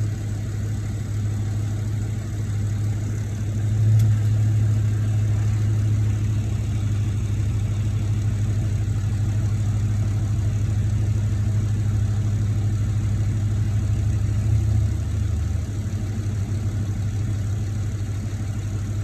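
Dodge Challenger 392's 6.4-litre HEMI V8 idling steadily, with a brief click about four seconds in. The owner is unsure whether the engine's clicking noise is normal.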